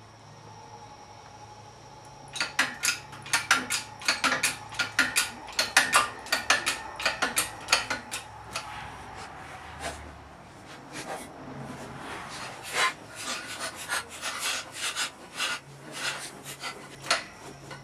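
Rapid, irregular metallic clicking and clinking from a hydraulic shop press as its bottle jack is worked to bend the welded intake manifold pipes into shape. The clicking starts about two seconds in, eases off briefly in the middle, then picks up again.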